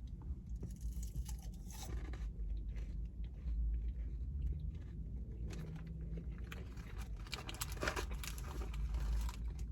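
Close-up eating sounds: a person biting into and chewing Chick-fil-A waffle fries, with small crunches scattered throughout.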